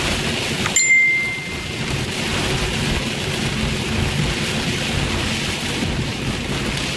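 Heavy storm rain beating on a car's windshield and body, with a steady low rumble underneath. About a second in there is a sharp click followed by a short high tone.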